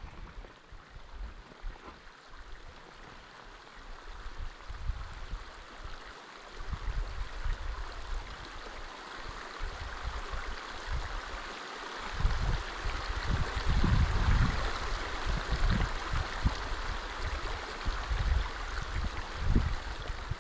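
Outdoor ambience: a steady rushing hiss that grows louder about halfway through, with irregular low gusts of wind buffeting the microphone.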